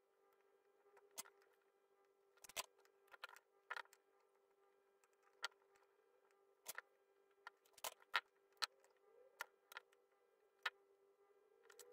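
Irregular small clicks and taps of a cable plug and its parts being handled and worked in a metal helping-hands clamp, over a faint steady hum.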